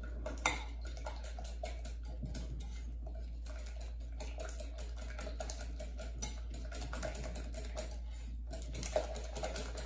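A wire whisk beating thin banana-and-egg pancake batter in a ceramic bowl: a fast, steady run of light clicks as the wires strike the bowl, with a couple of sharper knocks, over a low steady hum.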